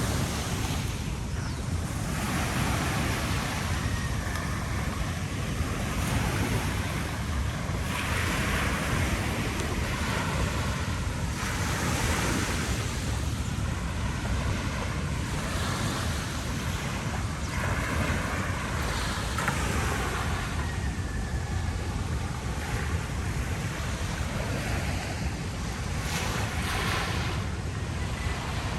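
Ocean surf washing onto a beach, its hiss swelling and falling every few seconds over a steady low rumble of wind on the microphone.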